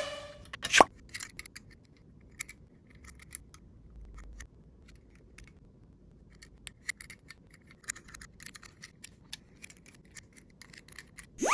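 Die-cast Tomica toy police car rolling on a slope: scattered light clicks and small rattles of its wheels and body on the surface, one sharper click about a second in. Just before the end a rising whistle-like sound effect starts.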